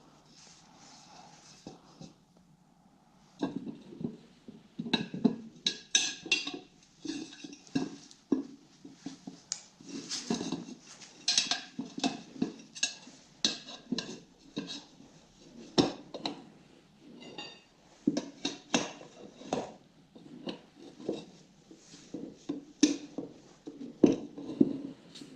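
Metal tools clinking and scraping against the motorcycle wheel rim during tyre changing: irregular clanks and clicks that start about three seconds in and go on throughout.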